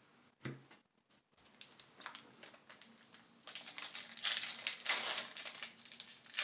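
A foil booster pack of trading cards being handled and torn open: a thump, then crackling foil that swells into loud, dense crinkling over the last few seconds.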